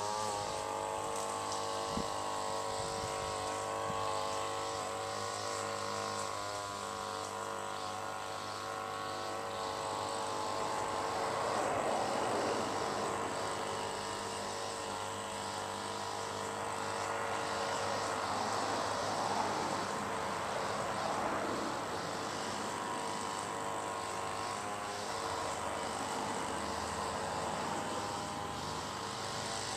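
Outdoor ambience dominated by a distant engine drone: a steady pitched hum for about the first ten seconds that gives way to a broader rushing noise, swelling and easing over the following seconds.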